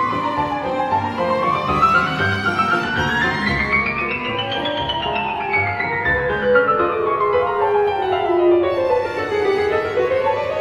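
Grand piano and orchestral strings playing a lively classical concertino, the piano busy at the keyboard. A line of notes climbs steadily for about four seconds, then falls back down for about five, and starts to climb again near the end.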